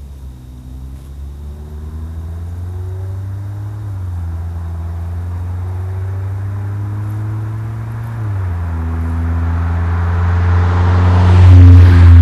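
Mazda CX-5's 2.0-litre four-cylinder engine breathing through a Corksport aftermarket exhaust and short ram intake, accelerating toward and past the camera. Its pitch climbs and drops twice, about four and eight seconds in, as it shifts up, growing louder to its peak near the end as it passes closest.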